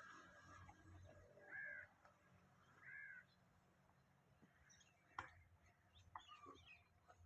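Bird calls: two arched calls about a second and a half apart, then a sharp click and several short, higher chirps near the end.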